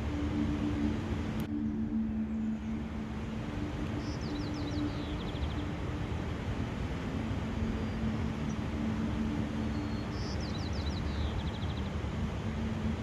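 Steady rushing outdoor ambience with a low rumble and a steady low hum, over which a small songbird sings a short, quick series of high falling notes twice, about four seconds in and again near the end.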